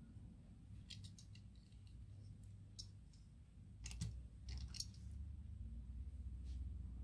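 Light clicks and taps from a Takara Tomy Tomica die-cast Mercedes-AMG GT R toy car being handled: its small doors swung open and the metal car set down on a cutting mat. A few scattered clicks, the loudest about four seconds in, over a faint low hum.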